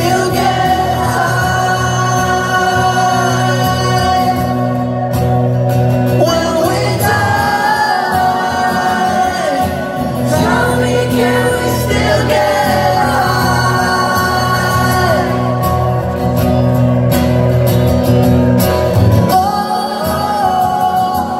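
Live rock song: a male lead singer over strummed acoustic guitar and electric bass, heard in a large hall.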